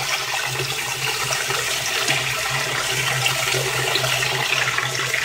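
Water rushing steadily into the wash basket of a Whirlpool Direct Drive top-loading washing machine as it fills with hot water, with a steady low hum under it.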